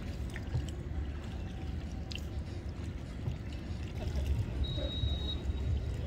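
Water trickling from cupped hands into the river over a steady low rumble, with a short high whistle about two-thirds of the way through.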